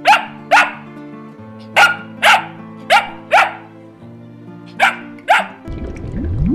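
A dog barking: eight short, sharp barks, mostly in pairs about half a second apart, over background music. Near the end the music gives way to a low rushing noise.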